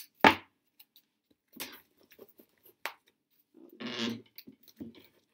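Blue painter's tape being pulled off the roll and torn, then pressed and rubbed onto cardboard over a wire hanger: a sharp tearing snap just after the start, then scattered crinkly clicks and rustles, and a longer rubbing scrape about four seconds in.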